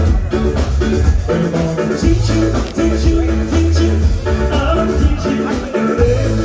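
Upbeat dance-pop song with a heavy, pulsing bass line and singing.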